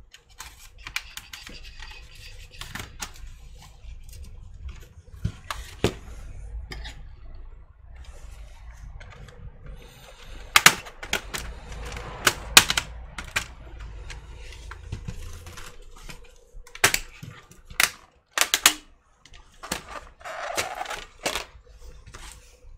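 Irregular clicks and taps of hands working on a laptop's plastic case and internals, with several sharper snaps about halfway through and again near the end, over low handling noise.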